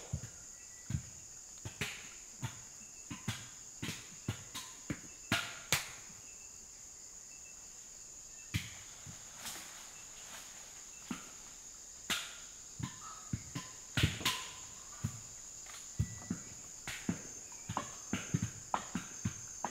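Steady high-pitched insect drone with irregular sharp knocks and cracks, one or two a second, the loudest about two thirds of the way through, and a few faint short whistled tones.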